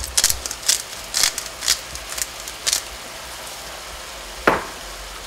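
A hand salt grinder being twisted over a frying pan, six short grinding bursts about two a second, stopping about three seconds in, over the steady sizzle of ground meat frying. About four and a half seconds in there is one sharp tap.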